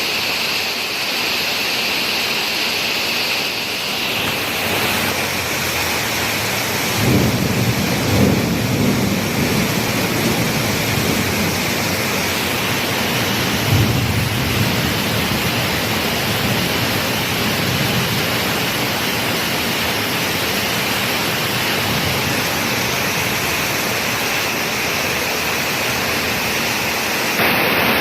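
Rain falling steadily, with low rolls of thunder about seven seconds in and again around fourteen seconds.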